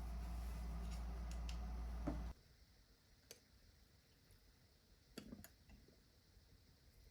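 A steady low hum with a few faint clicks that cuts off abruptly a little over two seconds in, followed by a quiet room with a handful of faint, sharp clicks and taps.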